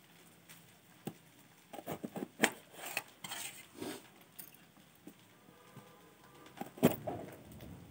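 Kitchen knife cutting through green bell peppers and knocking on a stainless-steel plate: scattered sharp clicks and short knocks, loudest about two and a half seconds in and again near seven seconds.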